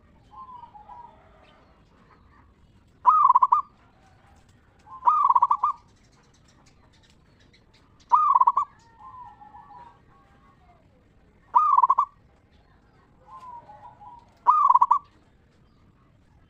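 Zebra dove (perkutut) cooing: five loud, ringing coos about three seconds apart, each about half a second long, with softer, lower warbling notes between some of them.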